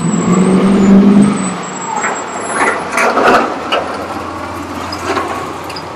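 Road traffic: a motor vehicle's engine passing close by, loudest about a second in, then continuing traffic noise with several short sharp sounds around the middle.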